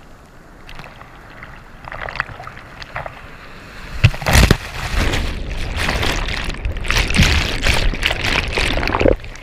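Surf whitewater washing around a GoPro at water level. About four seconds in, a breaking wave crashes over the camera with sharp splashes, and loud churning water stays over it until it eases off near the end.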